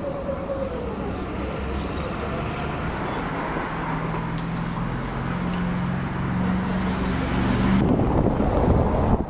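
A vintage wooden electric tram pulling away on street rails, its motor giving a low steady hum that shifts pitch in small steps, over street noise. Near the end, wind buffeting the microphone takes over.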